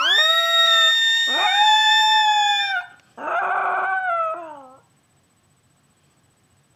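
A dog howling along to a song: a long howl of nearly three seconds that slides up and holds, then a shorter howl that trails off with falling pitch.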